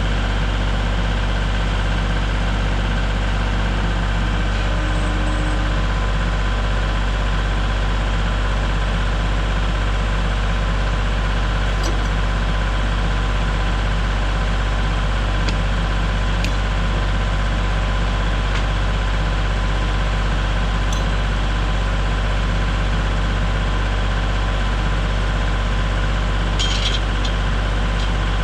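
Engine idling steadily with a deep, unchanging hum, with a few faint clicks and a brief metallic clinking near the end.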